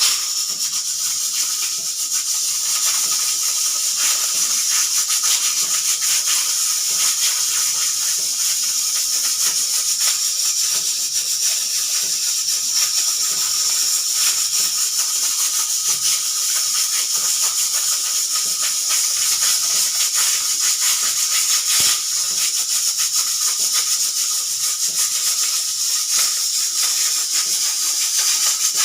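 Pressure cooker venting steam through its whistle: a steady hiss with no distinct whistle blast, the whistle not working properly.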